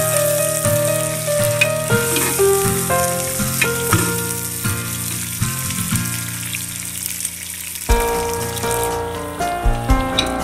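Tinda and onions sizzling as they fry in an aluminium pressure cooker pot, stirred with a steel ladle, under background music with a stepping melody; the music changes about eight seconds in, bringing in a deep bass.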